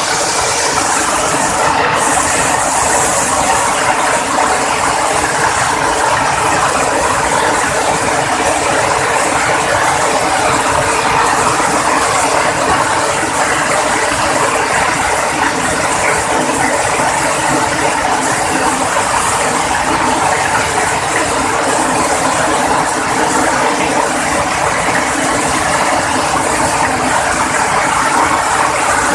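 Heavy rain falling steadily, a dense, even noise of countless drops that holds without letting up.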